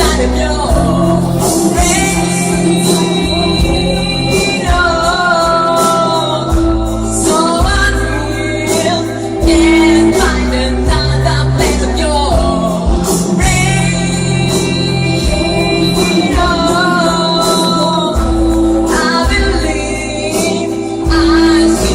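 A song: a singer holds long notes with vibrato over a backing track with a steady bass line and drums.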